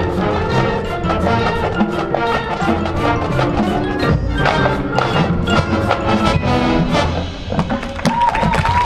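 Marching band playing, with a steady drum beat under pitched band parts.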